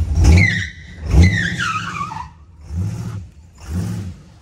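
Tires on the small-block-350-powered 1947 Hudson pickup squeal twice, each squeal falling in pitch, as the truck pulls away hard under throttle against its sticking brakes. Then the engine note surges briefly twice.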